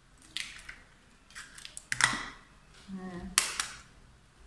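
Raw eggs cracked and their shells broken open over a mixing bowl: several short, sharp cracks and crunches, the loudest about two seconds in and again about three and a half seconds in.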